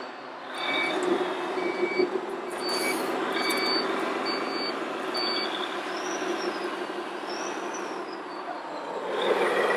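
Electronic diesel-engine sound from RC model trucks' sound modules running steadily, with a reversing beeper beeping about once every two-thirds of a second from about half a second in until about halfway through. The engine sound swells near the end.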